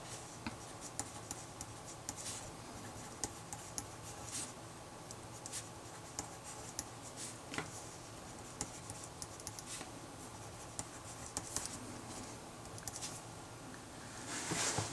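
Handwriting: short scratching strokes and light taps of a writing instrument, with a louder rustle near the end.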